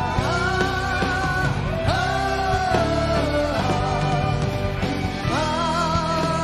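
Live rock band performance: male voices holding long, high sung notes in phrases a second or two long, over guitars and drums.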